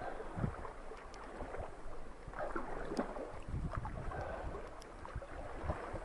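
River water splashing and lapping irregularly against the side of a small boat moving downstream, close to the microphone, with a low wind rumble on the microphone.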